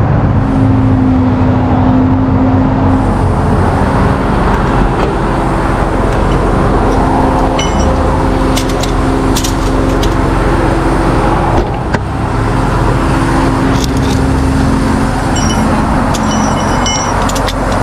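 Steady running of a vehicle engine over passing road traffic. Ringing metal clinks of tow wheel-lift parts being handled come about halfway through and again near the end.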